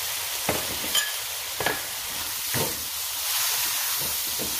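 Stir-frying in a pan: steady sizzling, with a spatula scraping and knocking against the pan several times.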